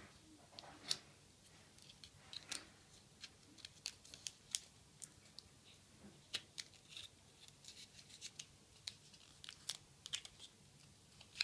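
Folded origami paper crinkling in faint, irregular sharp crackles as its flaps are pushed in and pulled up into lotus petals.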